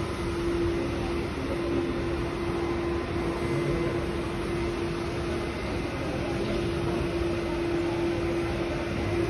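Steady mechanical hum with one constant mid-low tone over an even wash of noise, the tone dropping out briefly once or twice.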